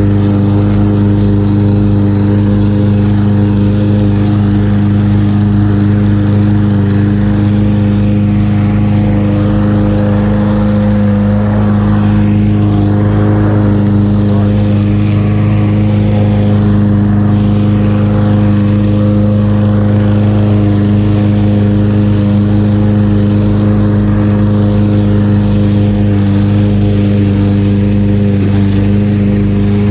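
Lawn mower engine running steadily while cutting grass, one unchanging loud drone.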